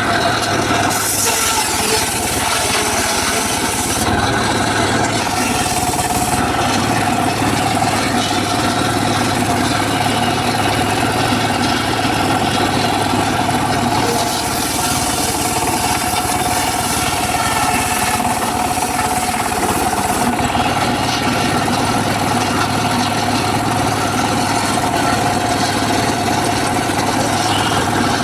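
Home-built circular saw running steadily while cutting teak wood, a constant whine over dense sawing noise that shifts a few times as the cut changes.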